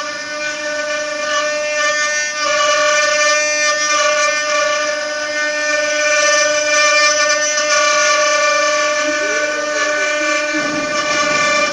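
A CNC wood router spindle runs at a steady high whine with a stack of overtones while its small bit carves into a wooden furniture leg on the rotary axis. Near the end a short tone rises and falls in pitch.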